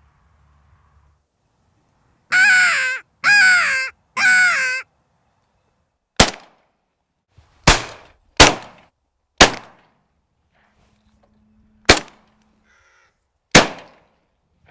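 Three harsh caws about a second apart, blown on a mouth-held crow call to lure crows in. Then six loud shotgun shots spread over about seven seconds, the loudest sounds here.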